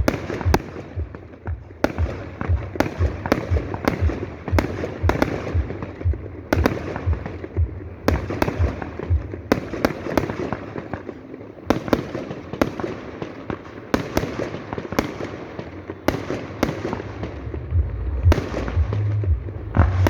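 Fireworks display: aerial shells bursting in quick, irregular succession, sharp bangs over a continuous crackle. A steady low sound comes up near the end.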